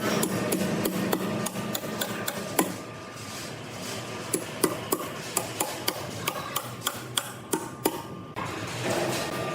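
A rapid, irregular series of sharp knocks, two or three a second at their densest, over a steady background noise.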